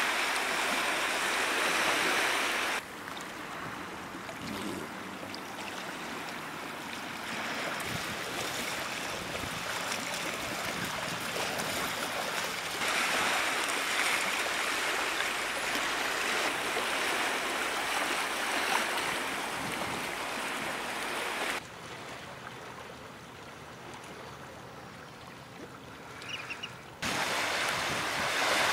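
Steady rushing wash of sea water lapping against a rocky shore. It drops suddenly to a quieter level about three seconds in, swells back, drops again near the end, then jumps back up.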